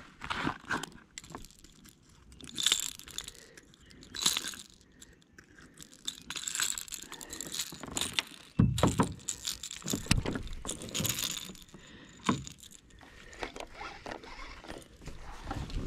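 Irregular clicking, rattling and rustling of a caught largemouth bass and fishing tackle being handled in a kayak, with a couple of heavier dull thumps about two-thirds of the way through.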